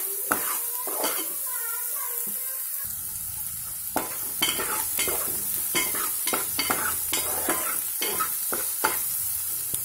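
Chopped onions sizzling in hot oil in a metal pot as they are fried until brown, with a steel spoon stirring them and scraping and clinking against the pot. The scrapes come more often in the second half.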